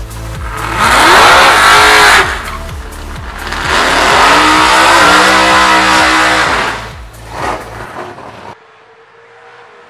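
Drag-racing car doing a burnout: the engine revs hard in two long runs, each rising then falling in pitch, then gives a short blip. Electronic dance music with a steady beat plays under it and cuts out near the end, leaving a quieter steady engine note.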